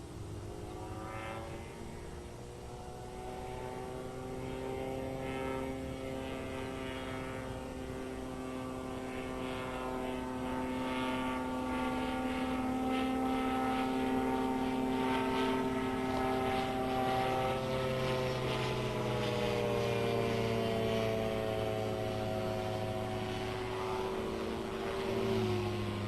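Titan Tornado light aircraft's propeller engine, heard from the ground as it flies aerobatics. A steady drone whose pitch rises over the first couple of seconds, dips and climbs again past the middle, and drops sharply near the end as the plane passes.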